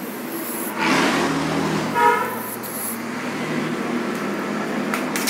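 A road vehicle passes with a short horn toot about two seconds in, over steady background noise.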